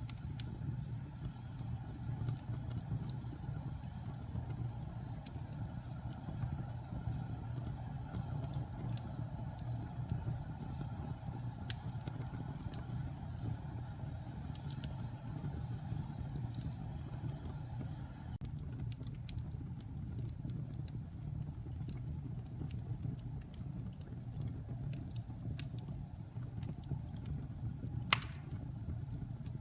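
Wood fire burning in a fireplace: a steady low rumble of flames with scattered crackles and pops, and one loud sharp crack near the end.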